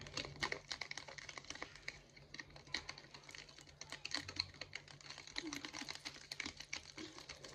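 A thin wooden stick stirring a thick mix of shampoo and salt in a small plastic tub: rapid, irregular clicking and scraping taps of the stick against the tub, several a second, over a low steady hum.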